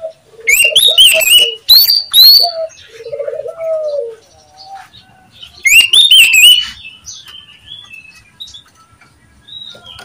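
Oriental magpie-robin calling: three loud bursts of sharp, gliding whistled notes, about half a second, two seconds and six seconds in, with lower warbled notes between them and fainter scattered notes after.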